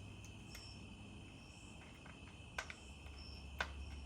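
Crickets chirring steadily and softly, with a few light clicks of hand tools being handled.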